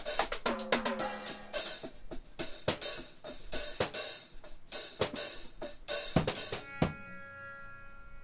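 Drum kit played live: irregular hits on snare, bass drum and cymbals with cymbal wash, ending with a last hit about seven seconds in. A steady ringing tone holds after that last hit.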